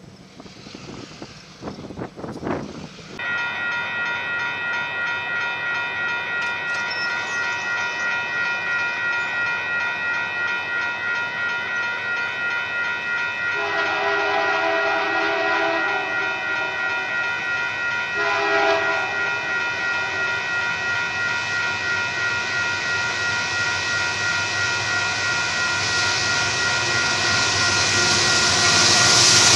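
Railroad grade-crossing warning bell ringing steadily about twice a second. A Union Pacific locomotive horn sounds one long blast and then a short one to warn the crossing. Near the end the rumble of the approaching train grows loud.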